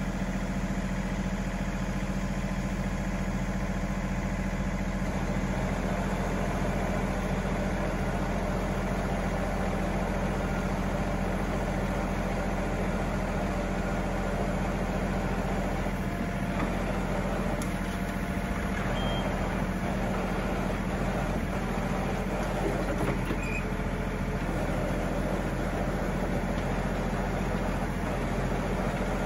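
John Deere 3038E compact tractor's three-cylinder diesel engine running steadily while it powers the backhoe digging a trench.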